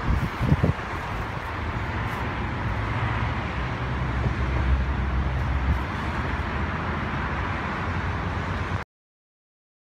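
Steady outdoor background noise, a low rumble under an even hiss, with a few brief thumps at the start; it cuts off abruptly to silence near the end.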